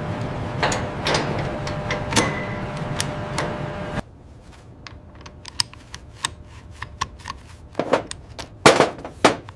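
Assembly work noise: a dense mechanical din with repeated knocks for about four seconds, which cuts off abruptly. Then a quieter stretch of sharp clicks and clacks, with a few louder knocks near the end.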